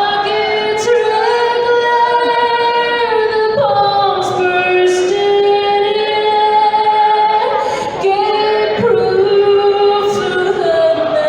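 A woman singing slow, long-held notes that change pitch every two to three seconds, with a few brief sharp clicks over the singing.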